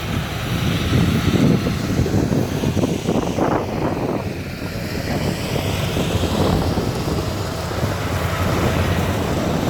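A rice combine harvester running, a loud, steady mechanical noise.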